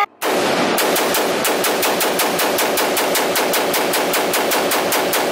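Braced carbine with a 100-round drum magazine being fired in a long rapid string, about five or six shots a second, echoing loudly in an indoor range.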